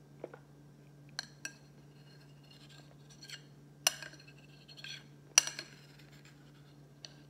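Cutlery clinking and scraping against a bowl of durian while eating: several sharp, separate clinks with softer scrapes between them, the loudest about four and five and a half seconds in.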